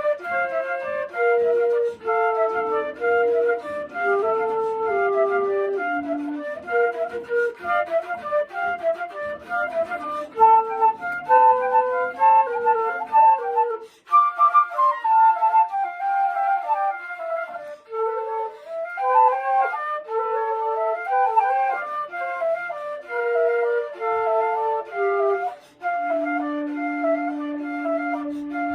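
Flute ensemble playing a piece in several parts at once, with a short break partway through, and a long held low note near the end.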